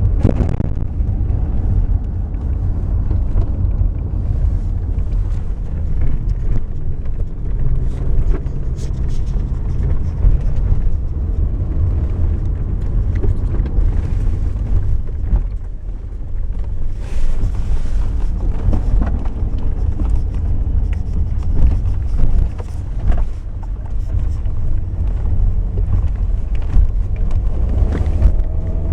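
Toyota RAV4 driving, with a steady low road and wind rumble and irregular knocks scattered through it. The owner puts the knocking down to the steering rack.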